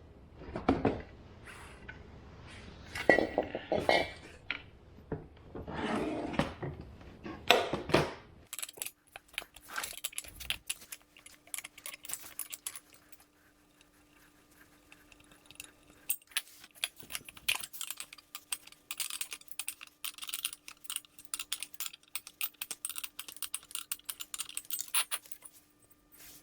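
Hands handling metal parts of an ARB twin portable air compressor as it is taken out of its case: several heavy knocks and clunks over the first eight seconds, then rapid light clicking and clinking with a faint steady hum under it.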